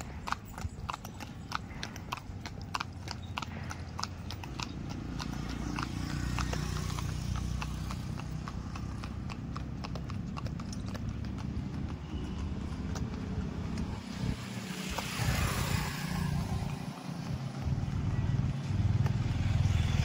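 A mare's hooves clip-clopping on the road at an even walk or trot, about three hoofbeats a second, clearest in the first few seconds. The low rumble of passing traffic builds under them and grows louder toward the end.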